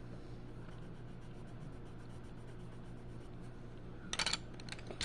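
Coloured pencil scratching lightly on paper in quick small strokes, then about four seconds in a brief clatter of wooden pencils as one is put back among the stacked pencils.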